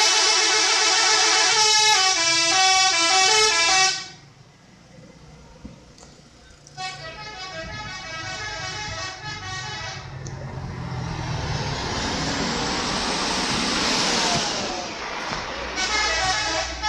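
Indonesian bus 'telolet' musical horn playing a loud stepped multi-note tune for about four seconds, then a fainter tune after a short pause. A vehicle then goes past with a rush of noise that builds and fades, and the horn sounds again briefly near the end.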